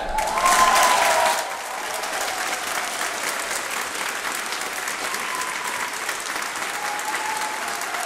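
Audience applauding at the end of a piece, loudest for the first second and a half, then settling into steady clapping.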